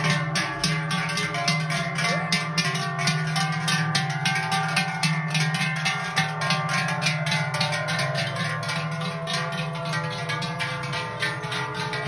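Music on a plucked-string instrument, a fast, even run of notes at about five a second.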